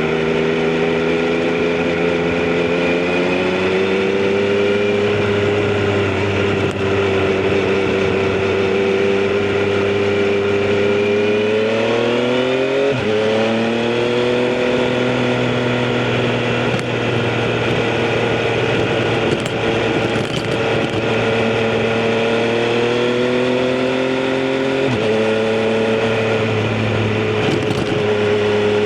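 Triumph Street Triple RS inline three-cylinder engine and exhaust under way, running at mostly steady revs. The pitch climbs and then drops sharply twice, about halfway and near the end: upshifts.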